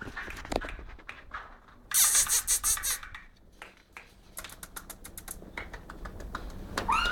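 A fast clatter of sharp clicks for about a second, about two seconds in, then scattered ticks. Near the end come a few short, high whimpers rising in pitch from an English bulldog puppy.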